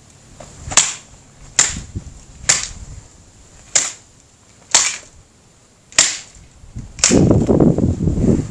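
A tennis racket being smashed, seven sharp cracks about a second apart, followed near the end by a longer scraping crunch as the battered frame gives way.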